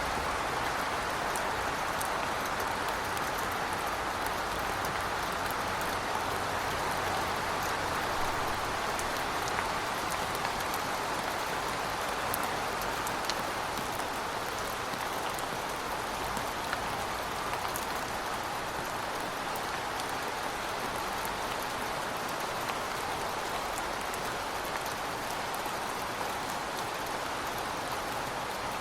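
Heavy rain falling steadily, an even dense hiss with scattered drops ticking on hard surfaces.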